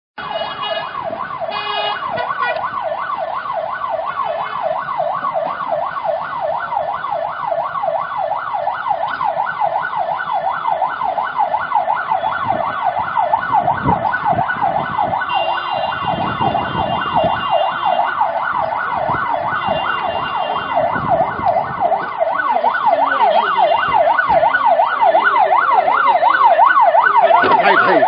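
Police car siren on a fast yelp, its pitch sweeping up and down several times a second without a break, growing louder toward the end as it comes closer.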